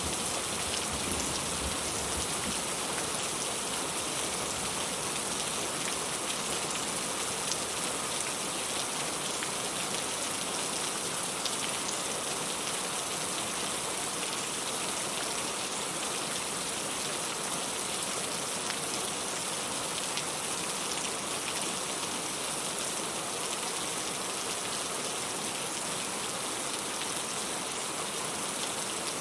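Steady rainfall, an even hiss with faint scattered drop ticks. A low rumble of distant thunder dies away about a second in.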